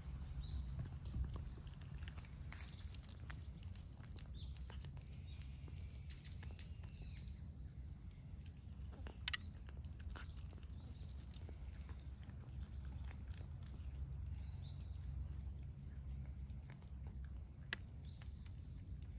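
Stray cat eating cat food, its chewing heard as scattered sharp clicks over a steady low outdoor rumble.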